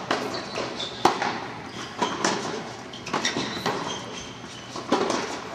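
Tennis rally on an indoor hard court: racket strikes and ball bounces, sharp knocks about once a second, each ringing briefly in the hall.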